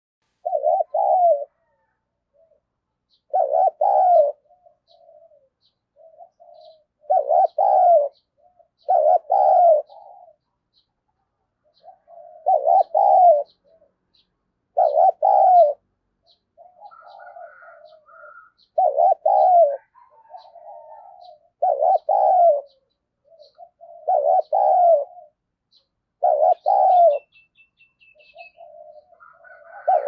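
Spotted dove cooing, a decoy bird calling hard to draw in wild doves: about ten loud phrases of quick coos every two to four seconds, with softer low coos between them. Faint high chirps from small birds sound in the background.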